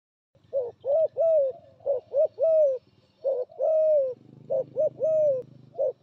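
Spotted dove cooing: a repeated phrase of two short coos and a longer, falling coo, heard about four times.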